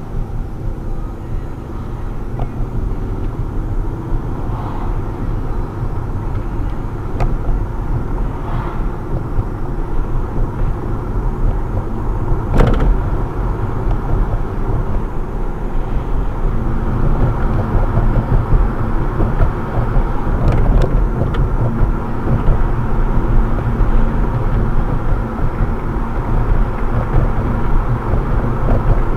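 Car road and engine noise heard from inside the cabin as the car speeds up from a crawl to about 30 mph: a steady low rumble that gradually grows louder.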